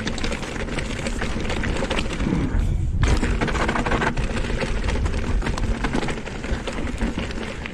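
Canyon Spectral:ON e-mountain bike descending a damp gravel and schist trail. Tyres crunch over loose stones while the chain and frame rattle over bumps, with wind rumbling on the microphone. The noise thins briefly about two and a half seconds in, then comes back sharply at three seconds.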